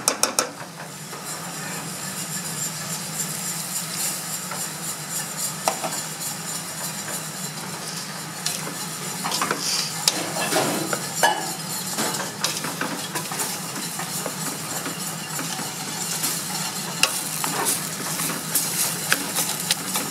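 A wooden spatula stirs and scrapes through minced beef and chopped tomatoes sizzling in a large aluminium pot, with a quick run of clicks against the pot right at the start. A steady low hum runs underneath.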